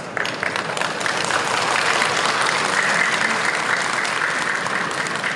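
An audience breaking into applause: many hands clapping, starting suddenly and swelling over the first couple of seconds, then holding steady.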